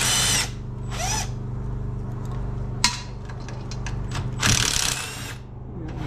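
Cordless power tool whirring in short runs as it spins out the 10 mm transmission pan bolts: one near the start, a short one about a second in, and a longer one around four and a half seconds. A sharp click just before three seconds, over a steady low hum.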